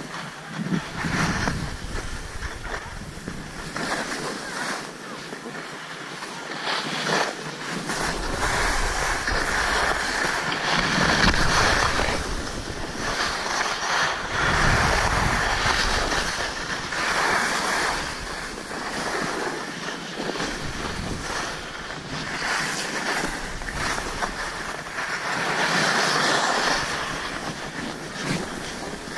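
Skis hissing and scraping over packed snow, a rushing noise that swells and eases, with wind buffeting the microphone in low rumbles.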